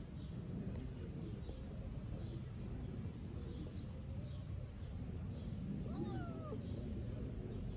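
A kitten gives one short mew about six seconds in, over a steady low background rumble.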